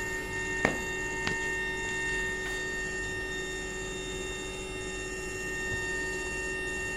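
Induction melting furnace running, a steady electrical hum made of several high and low tones at once. A couple of sharp metallic knocks come in the first second and a half.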